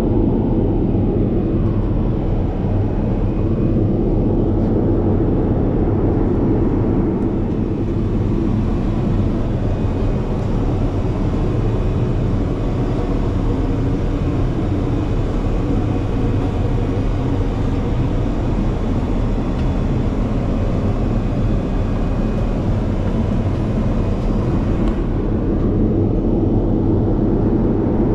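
Boeing 787-8 Dreamliner cabin noise in flight: a steady, even rumble of the engines and airflow, heard from inside the passenger cabin.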